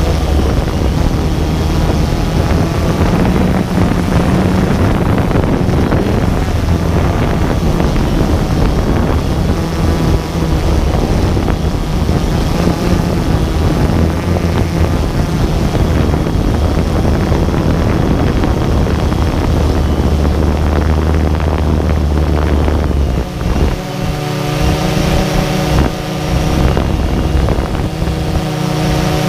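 DJI Phantom 2 quadcopter's motors and propellers running with a steady buzz while wind rumbles across the microphone. A clearer whine of several steady tones comes in about six seconds before the end.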